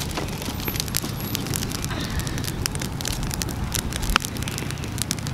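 Wood fire of split sticks and dry twigs crackling and popping as it burns against a tree stump, with irregular sharp snaps and a louder pop about four seconds in. A steady low rumble runs underneath.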